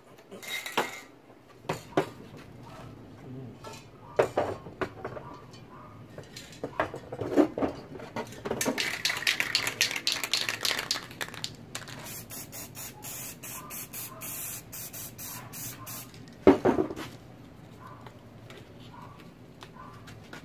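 Aerosol spray paint can hissing, with one longer spray a little before halfway and a run of short bursts after it. Scattered knocks and clatter of cans and tools being handled come in between, the loudest near the end.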